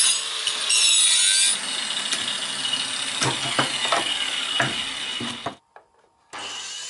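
Angle grinder cutting into a wooden board for about a second and a half. Then comes a quieter stretch of scraping with several sharp knocks as the cut piece is worked loose. After a brief silence, background music with a steady beat starts near the end.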